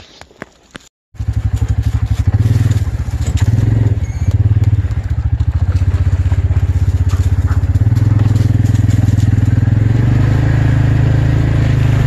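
Engine of a Massimo side-by-side UTV running as it drives along, a steady low drone that starts about a second in and swells a little soon after.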